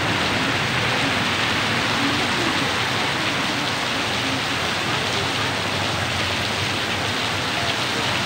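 Heavy tropical downpour falling steadily on a street, an even, unbroken hiss of rain.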